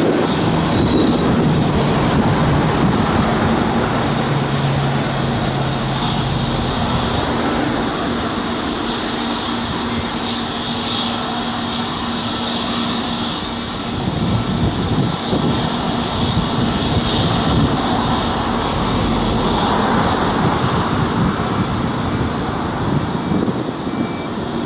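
Airbus A320neo's Pratt & Whitney PW1100G geared turbofans at takeoff power as the airliner lifts off and climbs away: a loud, steady jet roar with a deep rumble underneath and a faint steady whine above it.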